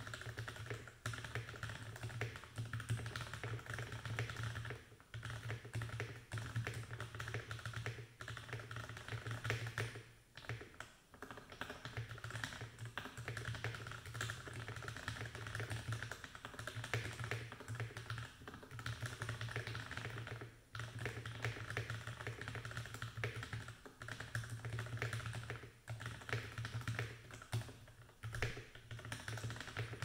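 Continuous fast typing on an NJ68 mechanical keyboard with lubed JWK (Jwick) yellow linear switches on a brass plate, stock stabilizers and Filco keycaps: a dense stream of keystroke clacks, broken by a few brief pauses.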